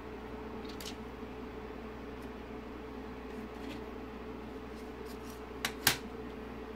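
Plastic parts of a car instrument cluster being handled on a desk: faint light clicks, then two sharp clicks close together near the end as the plastic LCD backlight frame is set down. A steady hum runs underneath.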